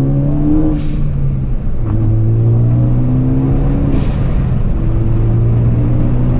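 Ford Focus ST's turbocharged 2.0-litre four-cylinder pulling hard under high boost, rising in pitch through the gears. At each upshift, about a second in and again about four seconds in, the Turbosmart dual-port blow-off valve vents with a short hiss. The venting is crisp, with no flutter or compressor surge, which is how a healthy setup should sound.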